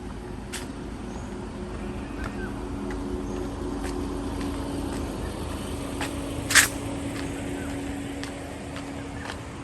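Steady low hum of a running motor, with scattered light clicks and one sharp, short, high-pitched sound about six and a half seconds in.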